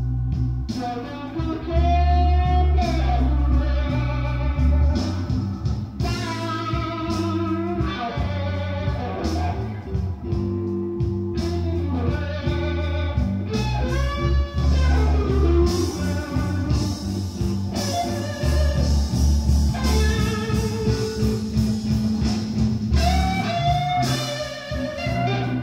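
Electric blues recording with a bending, vibrato-laden lead electric guitar over a heavy bass line, played back through a hi-fi system driven by a Yamaha M-80 stereo power amplifier.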